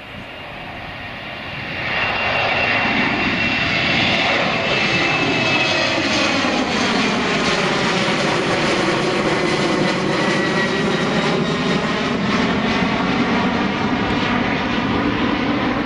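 Embraer 175's twin GE CF34-8E turbofans at climb power as the jet passes overhead after takeoff. The roar swells about two seconds in and then holds loud, with a thin high whine falling slightly in pitch and a sweeping, phasing quality as the plane goes over.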